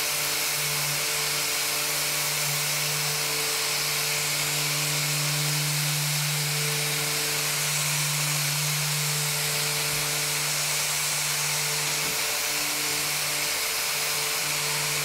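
SurfPrep 3x4 electric sander with a half-inch foam pad running on a primed door, the central vacuum drawing off the dust through the pad: a steady motor hum over a broad hiss.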